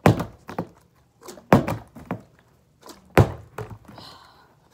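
Mini plastic water bottle being flipped and landing with dull thunks, three main hits about a second and a half apart, each followed by smaller knocks as it bounces and is grabbed again. Near the end there is a brief rustle as the bottle is picked up.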